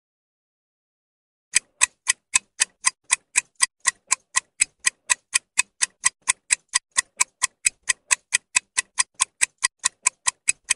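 Ticking-clock sound effect marking a quiz countdown timer: sharp, even ticks about four times a second, starting after about a second and a half of silence.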